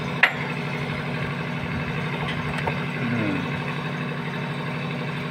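Steady low drone of machinery running, like an engine idling, with a single sharp click about a quarter of a second in.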